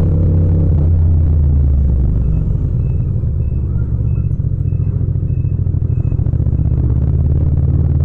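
Yamaha MT-07's 689 cc parallel-twin engine running at low city speed. It eases off the throttle about two seconds in and picks up again near the end. A faint high electronic beep repeats about twice a second through the middle.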